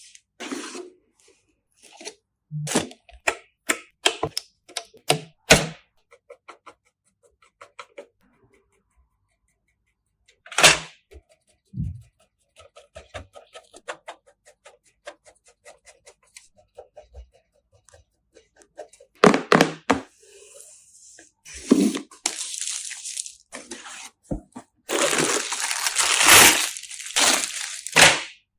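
Handling sounds from assembling a desktop computer: a run of sharp clicks and knocks of parts being fitted, a stretch of fast, fine ticking in the middle, and loud rustling scrapes near the end.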